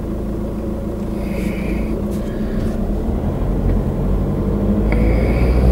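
Car engine and tyre noise heard from inside the cabin while driving, growing gradually louder, with the engine note rising near the end as the car picks up speed.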